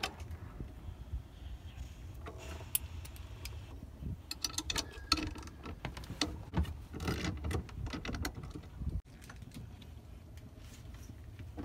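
Scattered light clicks and knocks of hands and metal fittings as a sailboat's wooden tiller is unfastened and worked off its rudder head, over a low steady rumble. The knocks thin out about nine seconds in.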